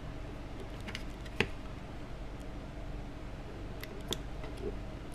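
A few small sharp clicks and taps as a Glock tool and a Glock 19 Gen 4 pistol frame are handled during disassembly, the loudest about a second and a half in, over a steady low hum.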